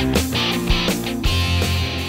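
Background rock music with guitar and drums playing.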